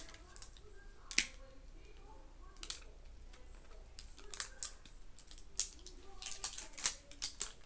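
The wrapping of a LOL Surprise ball crinkling and crackling as it is peeled open by hand: scattered sharp crinkles, sparse at first and coming thick and fast in the second half.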